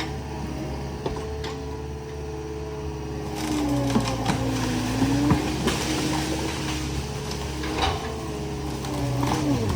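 A machine's engine running steadily. From about a third of the way in, a whining tone joins it, dipping and rising, with scattered knocks and clatter.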